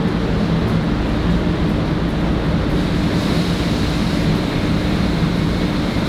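A machine running steadily: a low hum with a rushing noise over it, unchanging throughout.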